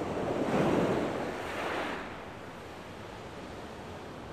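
Wind blowing on the shore, swelling in a gust over about the first two seconds, then settling into a steady rush.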